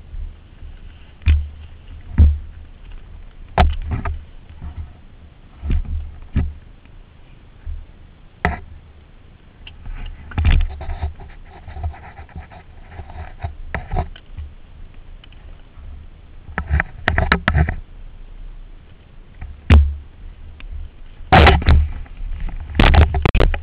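Irregular knocks and thumps on a helmet-mounted camera's microphone while a dirt bike is ridden over a rough, rocky trail. A denser burst of thumps comes near the end.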